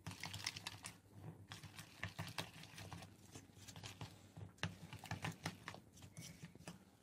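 Spoon stirring whole-wheat flour into a wet dough mix in a plastic bowl: faint, irregular scraping and small taps.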